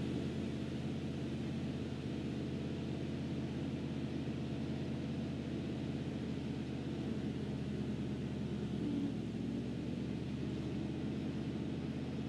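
1976 Chevy C65 log truck's engine running steadily, driving the hydraulic log loader as it lifts a load.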